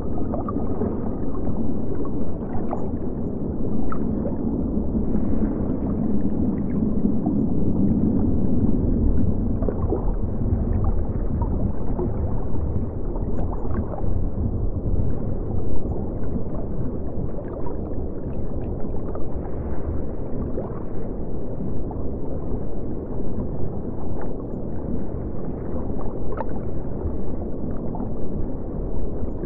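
Aquarium water ambience: a steady, muffled, low water sound with scattered small pops.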